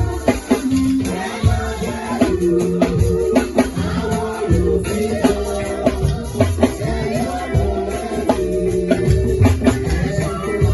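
Church band music with drums and rattles or shakers keeping a beat over sustained bass and keyboard-like tones.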